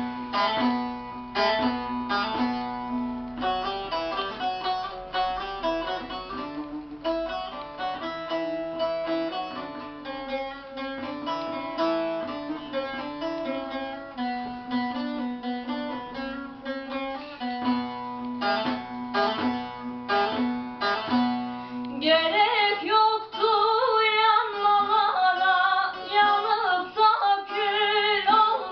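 Guitar playing a plucked instrumental passage. About two-thirds of the way through, a female voice comes in singing the next line over it.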